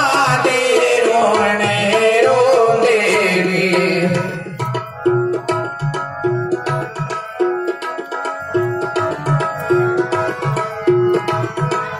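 Tabla playing a steady rhythmic cycle in an instrumental break of a devotional shabad, with a ringing high stroke about once a second over low bass strokes. For the first four seconds a held melodic line with sliding pitch sounds over it, then fades, leaving the tabla alone.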